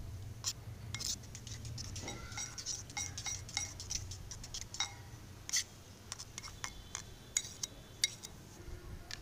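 Kitchen knife blade beating a raw egg in a terracotta bowl, tapping and scraping against the bowl in quick, irregular clicks. The clicks grow sparser in the last few seconds.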